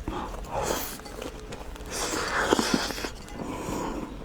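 Breathy mouth sounds from a person eating, with a few soft chewing clicks: two drawn-out breathy hisses, one about half a second in and a longer one around two to three seconds in.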